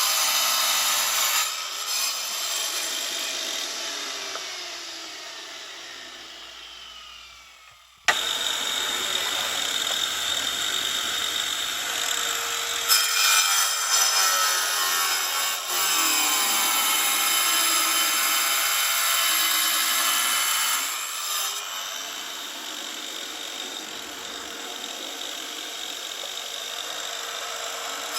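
A power tool running and cutting with a steady, hissing whine. It fades away over the first several seconds, then starts again abruptly about eight seconds in and runs on.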